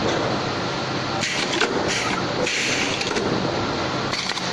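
Steady running noise of an automatic rivet machine and its workshop, with several short hisses in the middle and near the end.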